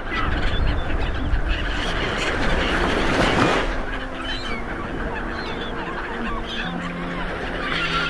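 A flock of water birds calling all at once: a dense chorus of many overlapping short calls over a low rumble, swelling briefly about three seconds in.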